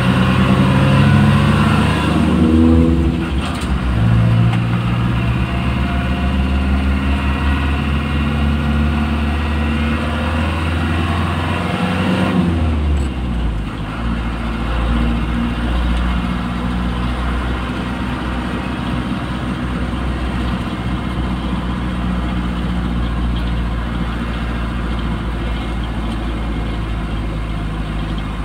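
Engine and tyre noise heard from inside the cabin of a moving vehicle. The engine note rises in the first few seconds, changes about twelve seconds in, then runs steadily at cruising speed.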